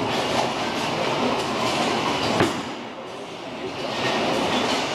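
Bowling alley noise: a bowling ball rolling down the lane with a steady rumble, with a sharp knock about two and a half seconds in.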